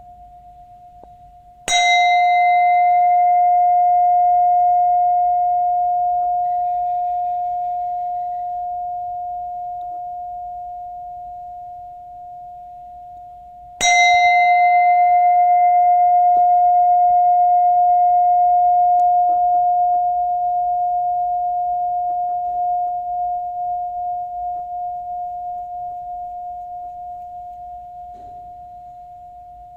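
Buddhist prayer bell struck twice, about twelve seconds apart. After each strike one clear steady tone rings on and slowly fades, while the higher, brighter overtones die away within a few seconds.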